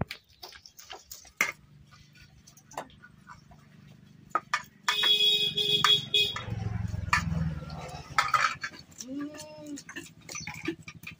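Knife scraping fish scales against a steel plate, with sharp clinks of steel bowls and a tumbler being handled; the busiest clatter comes in the middle.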